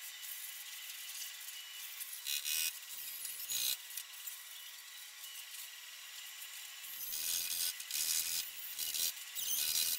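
Gas welding torch flame hissing steadily during welding of sheet-steel body panel, with a couple of brief louder flares. From about seven seconds in the noise turns rougher, louder and irregular.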